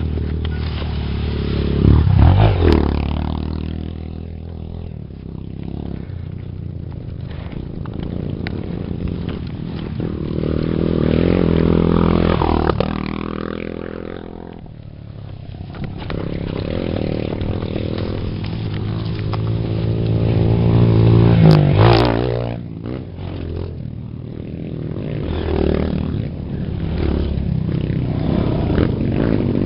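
Off-road motorcycle engines revving and accelerating close by, their pitch rising and falling, loudest about two seconds in and again around twenty-one seconds, with a few sharp knocks.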